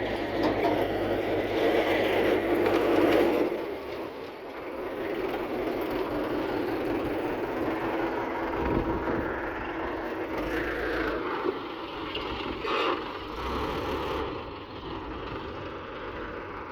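Diesel engines of a backhoe loader and a tractor running as they work, louder for the first few seconds and then easing to a lower, uneven level.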